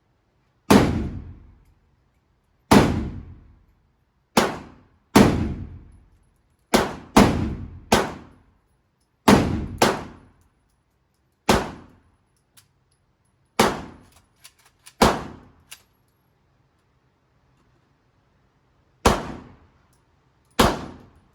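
7.62x51mm rifle shots fired at an uneven pace, about fourteen in all, some in quick pairs. Each sharp crack trails off in about a second of echo.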